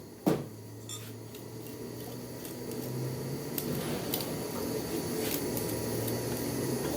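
A single sharp knock about a third of a second in, followed by a steady low hum and scattered faint clinks that slowly grow louder.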